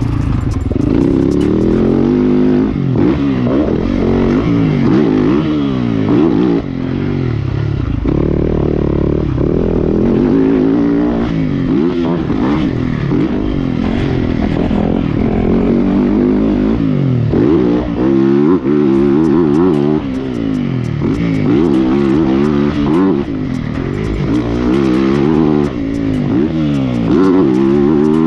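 Yamaha motocross bike's engine revving up and falling back again and again as the rider accelerates, shifts and backs off around a dirt track.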